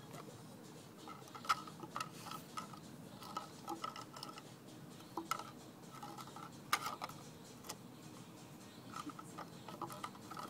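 A cat licking out a small plastic yogurt pot: irregular runs of small wet clicks from its tongue and the pot, coming in short bursts with pauses between.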